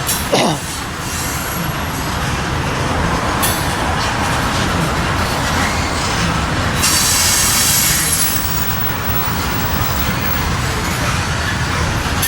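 Norfolk Southern train rolling past, its cars giving a steady loud rumble and rattle, with a thin high-pitched wheel squeal about a second in and a brighter hiss of steel on rail around seven seconds in.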